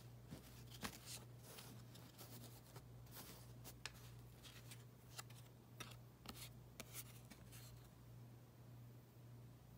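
Faint rustling and soft clicks of old cardboard trading cards being handled, slid and flipped over one another on a quilted cloth, over a steady low hum.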